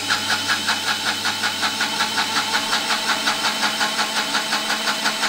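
Electric mixer grinder (mixie) running at full speed, blending mint leaves in its jar, with its lid held down by hand. Steady motor whir with a fast, even pulsing.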